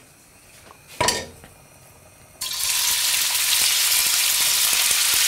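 A short knock about a second in. Then, about two and a half seconds in, raw pork pieces tipped into a pan of hot oil start sizzling all at once, a steady loud frying hiss that shows the oil is well heated.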